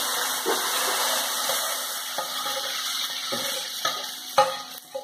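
Hot oil with fried onions poured from a frying pan onto thick haleem, hissing and sizzling as the tempering (baghaar) goes in, while a metal spoon scrapes the pan. A few sharp clinks of spoon on pan near the end, one louder than the rest.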